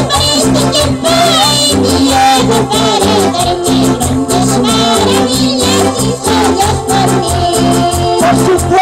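A live band playing a Christian worship song, with electronic keyboard and a steady, even percussion beat, and voices singing the melody over it.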